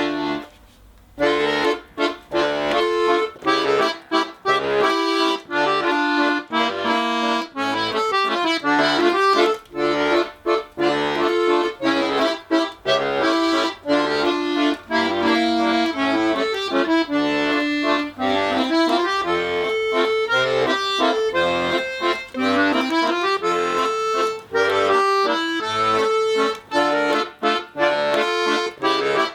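Tula-factory "Etyud" bayan (Russian button accordion) being played: a melody on the right-hand keyboard over rhythmic bass and chord accompaniment, starting about a second in. It is freshly repaired, and the repairer rates its bellows compression as fair, a four out of five, since the left-side valves were not re-glued.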